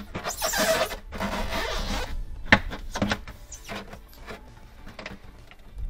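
A refrigerator air duct scraping and rubbing as it is pressed into its clips, a rasping scrape of about two seconds, then several light clicks and knocks as it is seated.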